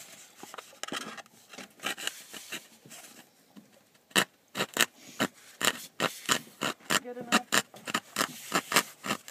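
A hand-held jigsaw blade sawing through the dry, hard shell of a gourd to cut an entrance hole: rasping back-and-forth strokes, light at first, then quicker and louder from about four seconds in at about three strokes a second.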